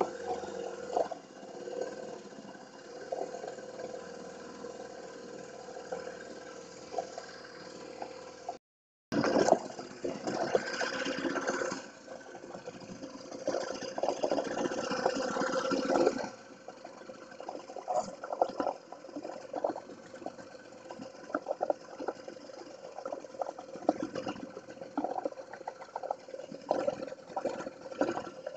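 Small outboard-powered fishing boat under way: water rushing and splashing against the hull over a steady outboard motor. The sound drops out completely for a moment a little before nine seconds in, then the splashing comes back louder and more uneven.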